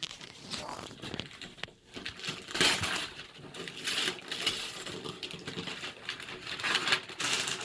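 Wrapping paper crinkling and rustling in irregular bursts as presents are handled, loudest about two and a half seconds in.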